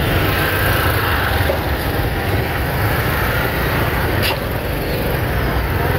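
Steady noise of heavy rain, with a single sharp click about four seconds in.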